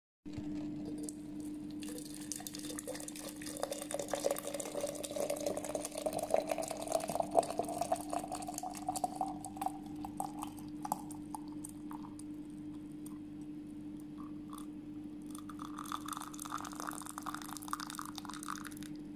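Liquid being poured into a container, its pitch rising steadily as the container fills, over a steady low hum. A higher-pitched stretch of liquid sound with small clicks comes near the end.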